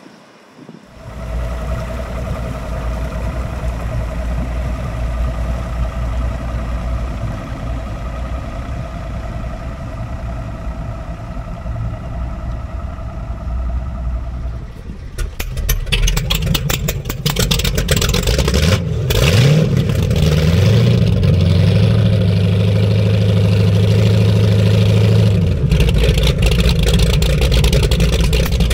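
Powerboat engines running: a steady low engine drone, then from about halfway louder boat engines idling roughly, with a brief rev.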